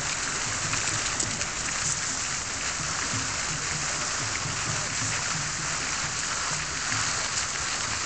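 Gusty storm wind rushing through trees and dry leaves: a steady, loud hiss.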